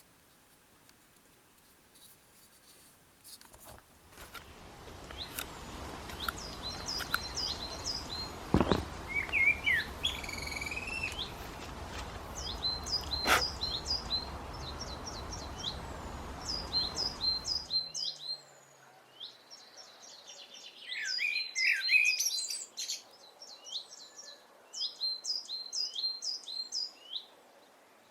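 Small birds chirping: runs of short, quick, high chirps repeated many times, over a steady outdoor background hiss that cuts off abruptly about two-thirds of the way through, after which the chirping carries on.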